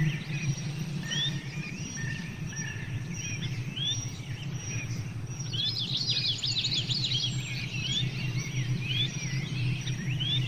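Small birds chirping: repeated short rising chirps, with a burst of rapid calls about six seconds in, over a steady low hum.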